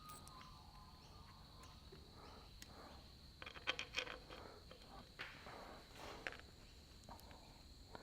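Faint small metallic clicks and scrapes of bolts being put in by hand into the engine's front housing. There is a little cluster of clicks about three and a half to four seconds in and another near six seconds.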